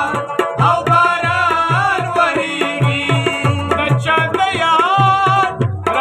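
A man singing a Pashto song to rabab accompaniment: a wavering, ornamented vocal line over quick plucked rabab notes, with a steady low beat about four times a second.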